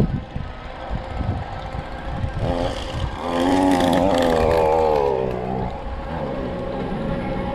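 A horn sounds for about three seconds, its pitch wavering, loudest in the middle. Under it is uneven low rumble and buffeting from wind on the microphone while riding.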